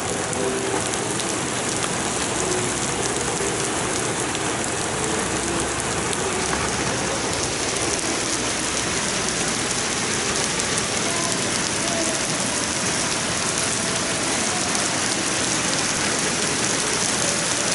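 Steady rain falling, a dense even hiss of drops pattering.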